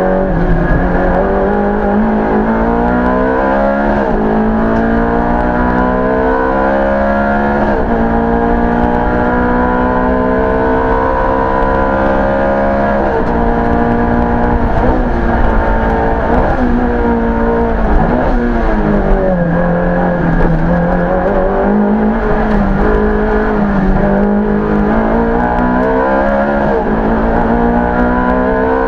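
Ferrari F430 GT3's V8 engine heard from inside the cockpit at full race pace: the revs climb again and again and fall sharply at each gear change, with a lower, wavering stretch about two-thirds of the way through as it slows for a bend.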